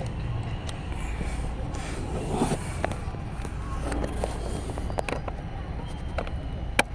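Scattered sharp clicks and short scrapes, as of plastic parts being handled and unclipped, over a steady low hum; the loudest click comes near the end.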